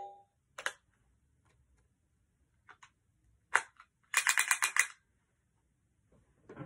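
Hard plastic clicks from handling a Power Rangers Dino Fury Morpher toy: a few single clicks, one louder, then a quick rattling run of about eight clicks around four seconds in. At the very start the tail of the toy's electronic sound effect dies away.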